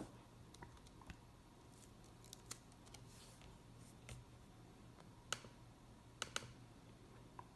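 Faint, scattered keystrokes on a MacBook keyboard over near-silent room tone: about nine single clicks at irregular intervals, a couple of them in close pairs.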